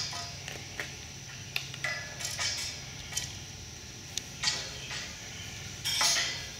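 Scattered light metallic clicks and clinks from hardware being worked loose on a steel lattice antenna tower, over a steady low hum.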